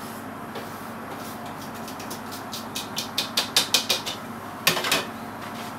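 Quick scraping and tapping strokes in a mixing bowl, about four or five a second, as flour is worked into yeast liquid for hard dough bread, with one longer, louder scrape near the end. A steady low hum runs underneath.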